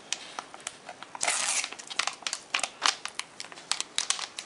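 A glossy plastic pouch of Cyberclean cleaning putty crinkling and crackling as it is torn open by hand: a run of sharp crackles, with a longer burst about a second in.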